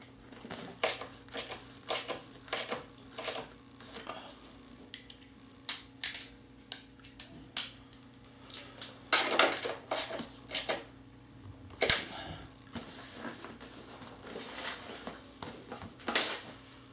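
Irregular light clicks and rattles of small metal and plastic parts and wiring being handled by hand, with a louder stretch of rustling and clatter about nine to eleven seconds in.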